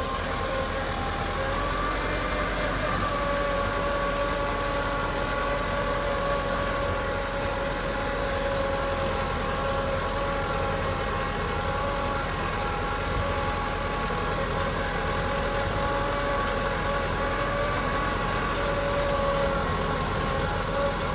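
Kubota tractor's diesel engine running steadily under load while pulling a disc harrow through dry soil, with a steady whine held over the engine noise.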